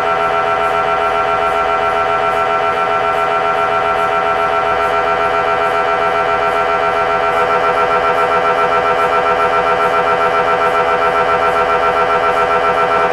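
MRI scanner's gradient coils sounding during a scan sequence: a loud, steady buzzing tone with a fast, even pulse that becomes more marked about halfway through.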